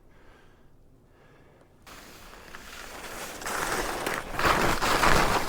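Skis hissing and scraping over snow with wind rushing past, starting about two seconds in after a near-quiet pause and growing steadily louder as the skier picks up speed.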